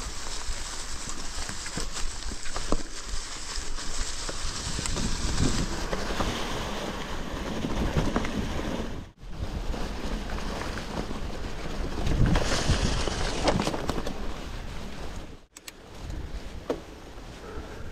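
Wind buffeting an action camera's microphone while a titanium hardtail mountain bike rolls fast over a singletrack covered in dry leaves and dirt, with tyre crackle and scattered knocks and rattles from the bike. The sound cuts out suddenly and briefly twice.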